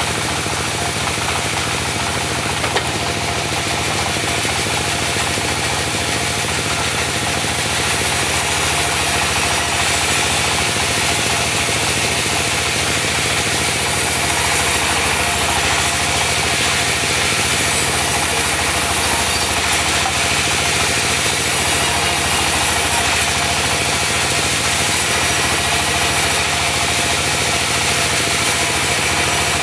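Diesel engine of a portable band sawmill running steadily under a constant, even mechanical noise, with a steady whine held throughout.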